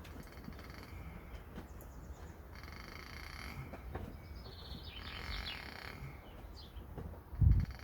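A rooster crowing in the background twice, each crow about a second long, over a steady low hum. Near the end comes a short, loud, low thud or snort.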